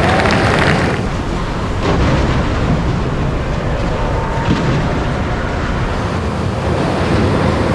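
Steady low rumble with a hiss over it, the ambient noise of an underground tunnel construction site. A workers' crowd murmur is heard in the first second.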